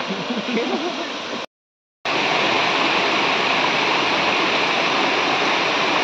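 Waterfall and stream water rushing over rock slabs, a steady noisy rush. About a second and a half in it drops out to silence for half a second, then comes back louder and closer.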